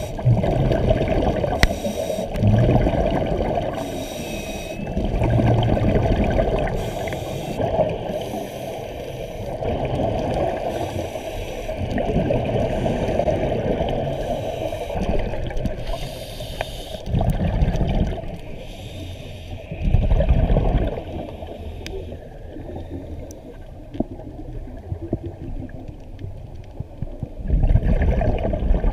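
Scuba divers breathing through their regulators, heard underwater: exhaled air bubbles gurgle and rumble in irregular bursts every few seconds over a steady watery hiss.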